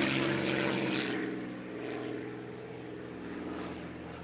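Piston engine of a WWII propeller fighter passing overhead: a steady drone, loudest at the start, that fades and dulls after about a second as the aircraft moves away.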